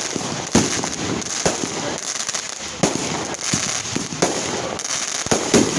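Fireworks going off: a string of sharp bangs at an uneven pace, roughly one or two a second, over a continuous crackle.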